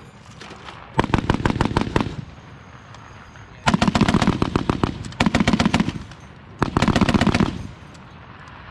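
M2 .50-calibre heavy machine gun firing four short bursts of rapid, evenly spaced shots, each burst lasting a second or less.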